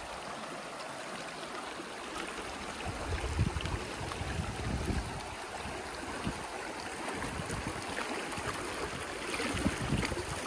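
Mountain creek running over rocks, a steady splashing rush of water, with a few low thumps scattered through it.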